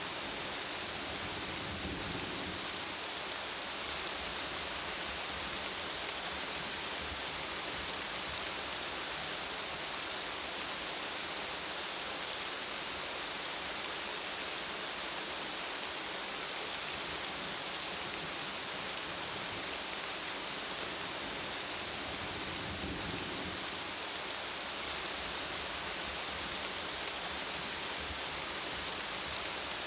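Steady heavy rain falling, an even hiss with no letup, with a faint low rumble twice: about two seconds in and again near twenty-three seconds.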